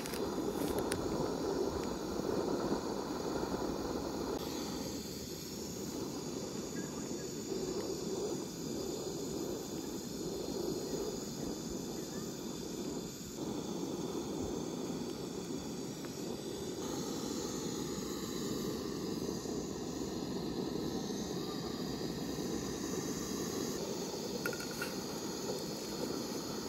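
Canister camping stove's gas burner running steadily under a pot of water.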